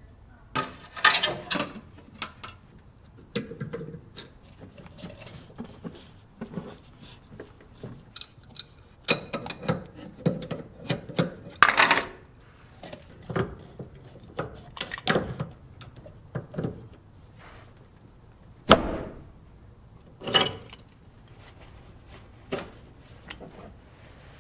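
Hand tools and metal car parts clinking, clanking and rattling in irregular bursts as a tie rod is being worked on, with one sharp metallic knock about 19 seconds in.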